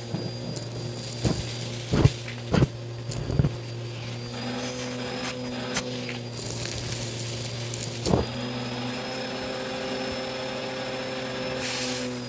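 Bissell vacuum cleaner running steadily with a hum and a high whine. Several sharp clicks and knocks come in the first few seconds, and one more about two-thirds of the way in.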